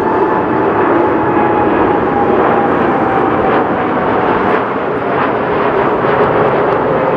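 Boeing 787-8 airliner climbing out after takeoff, its Rolls-Royce Trent 1000 engines giving a loud, steady jet roar. A whining tone in the roar slowly falls in pitch.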